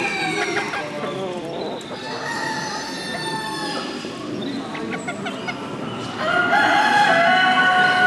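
Roosters crowing: a shorter crow about two seconds in, then a long, loud crow from about six seconds in.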